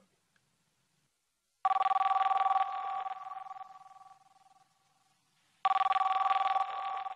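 Telephone ringing: two rings about four seconds apart, each loud for about a second and then dying away.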